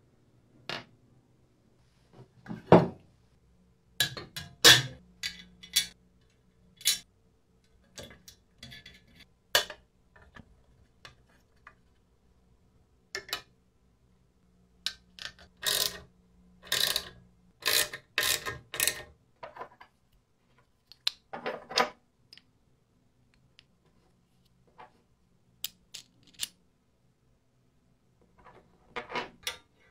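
Sharp metallic clicks, clinks and knocks from small metal parts being handled and fitted together by hand. The sounds come singly and in short clusters, with quiet gaps between them.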